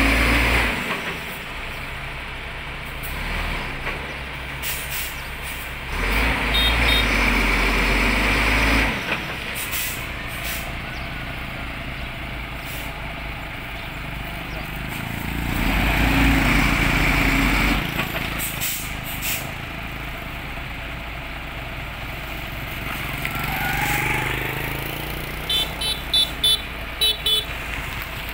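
Heavy truck engine of a semi-tractor hauling a bulk cement tanker, revving hard in bursts of a few seconds and dropping back to a lower run between them, as it strains to pull the tanker's wheels out of a muddy ditch. Short sharp hisses of air come between the revs, and a run of short beeps sounds near the end.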